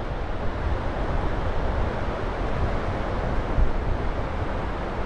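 Wind buffeting the microphone in irregular low gusts over a steady wash of surf on the shore, with one stronger gust about three and a half seconds in.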